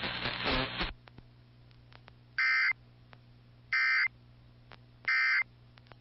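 The last words of a synthesized NOAA Weather Radio voice, then three short identical bursts of warbling digital data tone about 1.4 s apart: the EAS end-of-message (EOM) code that closes the tornado warning broadcast. A faint steady hum sits underneath.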